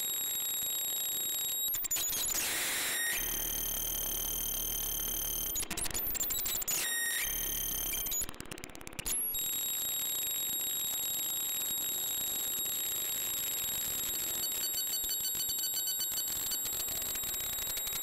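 Homemade breadboard noise oscillator (Mroztronium's New Unusual Oscillator) played through an amplifier and spring reverb: shrill, high-pitched electronic tones that jump between pitches, with a brief downward glide and short bursts of harsh noise. It settles into one steady shrill tone and near the end breaks into a fast stuttering pulse.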